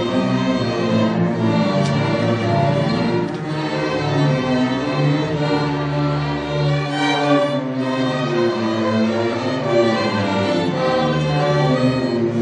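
String orchestra of violins, cellos and double basses playing, the bows drawing long held notes that change slowly.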